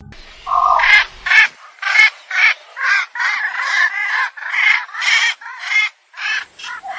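A bird giving loud, raspy calls over and over, about two a second, with a brief pause near the end.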